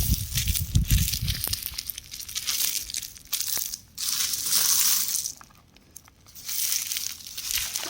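Rock crumbling apart: a gritty crackling and hissing of many small breaks, coming in several bursts with a brief pause a little past halfway.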